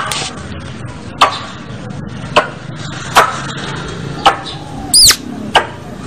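Squirrel calling: a string of sharp, short chirps about once a second, with one longer rising-and-falling whistled call about five seconds in.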